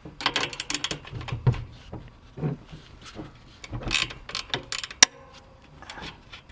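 Irregular metallic clicks and rattles of hand tools and BMX bike parts being worked on during disassembly, with a sharp click about five seconds in.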